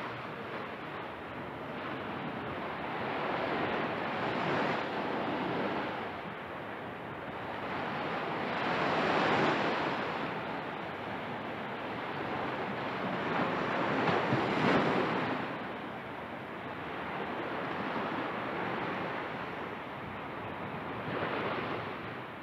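Atlantic Ocean surf washing onto a sandy beach: a steady rush of water that swells as each wave breaks and runs up the sand, about every five seconds, four times.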